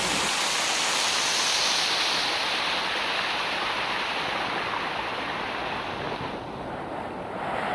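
Mountain stream water rushing steadily over rocks, an even wash of noise that eases a little past the middle and swells again near the end.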